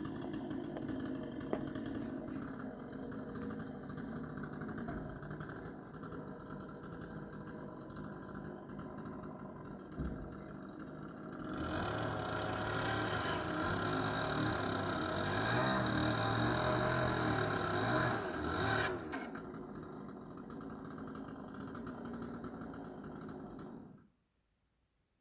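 An engine running steadily. It grows louder and busier about twelve seconds in for several seconds, settles back, and cuts off suddenly near the end.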